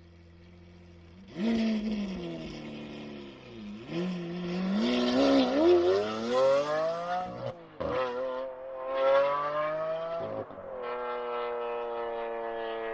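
Lamborghini Aventador LP700-4's V12 engine, quiet at first, then loudly revving up about a second in. It climbs in pitch through the gears with sharp drops at two shifts, then settles into a steady, slowly falling tone.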